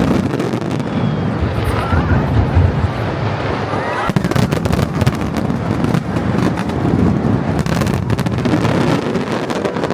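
Fireworks show going off in a dense barrage of bangs and crackles, heaviest in two spells in the middle and later part, with crowd voices faintly underneath.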